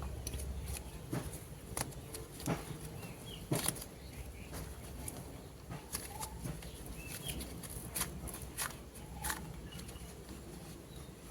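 Clay being handled and unboxed: irregular soft clicks and crackles at uneven intervals, with a few faint short chirp-like squeaks.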